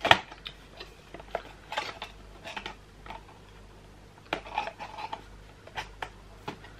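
A small cardboard gift box being handled and its flap pulled open: scattered taps, scrapes and rustles of card, with the sharpest click right at the start.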